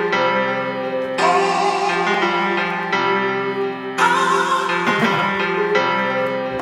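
Background music: sustained chords that change about every one and a half seconds.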